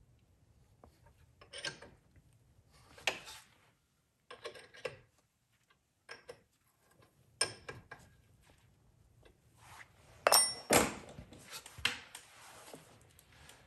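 Hand tools and metal brake parts clinking and rubbing in irregular short bursts during rear brake caliper work, loudest a little after ten seconds in with a brief metallic ring.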